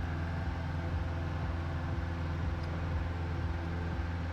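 Single-engine Cessna 172H's Continental six-cylinder engine running steadily at climb power just after takeoff.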